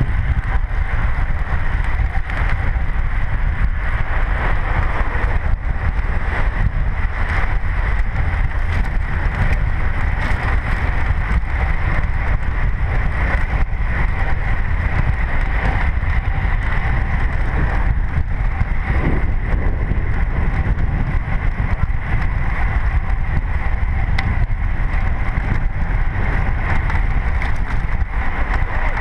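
Steady wind rushing over the microphone of a camera riding along with a group of road cyclists, with a constant hiss of bicycle tyres on asphalt underneath.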